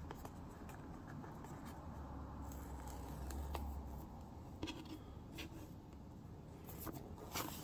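Hands handling a cardboard phone box and peeling off its paper seal tabs: faint scrapes, rubs and small clicks.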